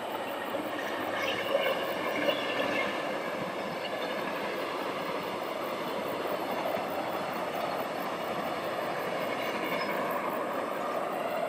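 Passenger train running past on its track: a steady rush of wheels on rail, holding an even level throughout.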